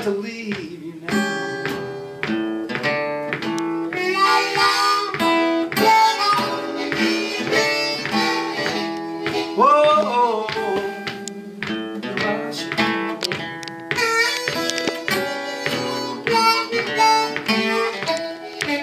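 Acoustic blues played live on an acoustic guitar and a harmonica: the guitar keeps a steady rhythmic pattern while the harmonica plays lines over it, with a note bent upward about ten seconds in.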